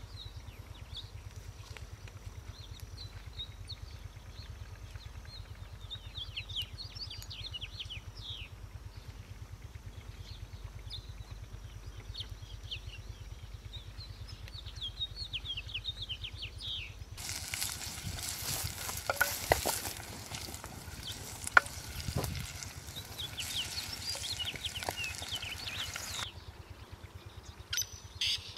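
Small birds chirping repeatedly over a low steady hum. About seventeen seconds in, a loud sizzling hiss of food frying in hot oil starts, with a few sharp clinks, and stops a couple of seconds before the end.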